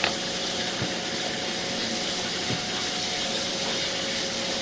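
Toilet tank refilling after a flush: a steady hiss of water running in through the fill valve.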